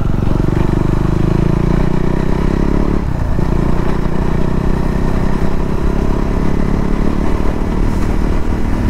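KTM Duke 390's single-cylinder engine running steadily as the bike rides along, with a brief dip about three seconds in before it pulls on and speeds up. It runs smoothly, not yet jerking from the fuel running low.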